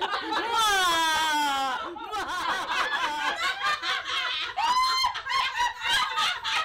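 Several women laughing together. It opens with one long, loud laugh that falls in pitch, then breaks into overlapping laughter, with a short high-pitched squeal about five seconds in.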